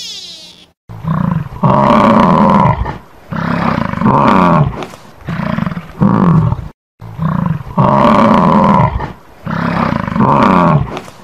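Bison bellowing: a string of low, rough calls about a second long each. The calls break off briefly near the middle and then repeat in much the same pattern.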